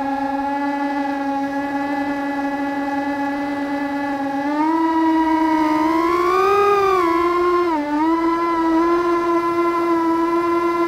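FPV quadcopter's brushless motors whining at a steady pitch. About four seconds in the pitch steps up as throttle is added, rises and falls briefly, dips once, then holds at the higher pitch.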